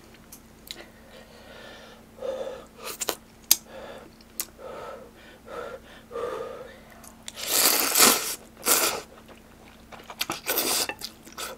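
A person slurping spicy ramyeon noodles into the mouth in three loud noisy pulls in the second half, with quieter chewing and small clicks before them.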